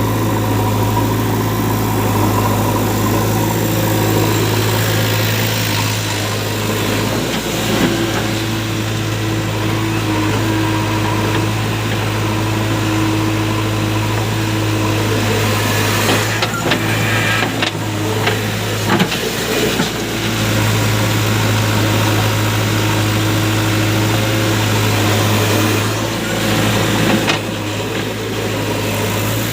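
Diesel engines of a JCB 3DX backhoe loader and a tractor running steadily, with the engine note rising and holding twice as the loader works. A few knocks come about halfway through and again near the end.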